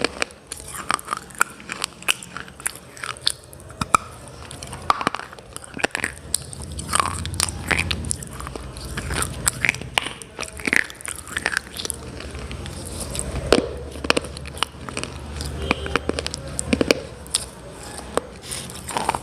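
Close-up crunching as someone bites and chews hard, brittle earthy pieces such as slate pencils and clay cubes, with many sharp, irregular crunches.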